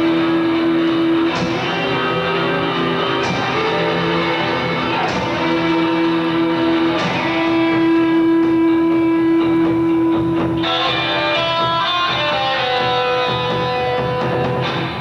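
Live rock band playing an instrumental passage led by electric guitar, with long sustained, ringing notes held for several seconds.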